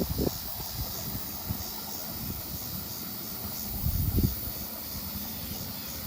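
Steady rush of irrigation water pouring out through a rice-field levee gate where the boards have been pulled, draining the flooded field. A rapid high pulsing runs over it, and low rumbles come and go about four seconds in.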